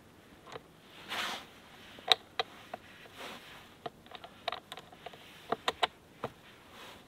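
Sharp metallic clicks and clinks of cable clamps and connectors being handled and fitted onto battery terminals, irregular and mostly from about two seconds in, with a couple of brief soft rustles.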